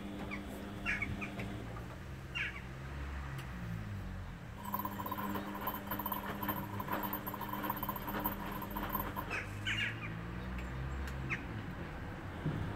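Beko front-loading washing machine tumbling a wash load: the drum motor hums, gliding up and down in pitch as it speeds up and slows down, with a higher whine for a few seconds in the middle. Short high chirps sound now and then.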